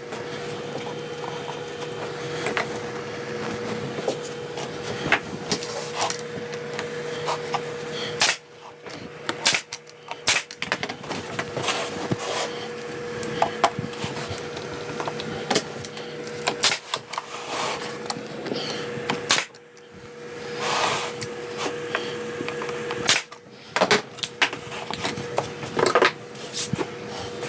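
Wooden workpieces and hand tools being handled on a shop bench: scattered sharp knocks, taps and clicks over a steady hum that drops out a few times.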